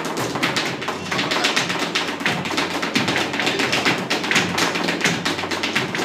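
Flamenco palmas: fast, crisp hand-clapping in rhythm with cajón strokes underneath, keeping the alegrías compás without guitar or voice.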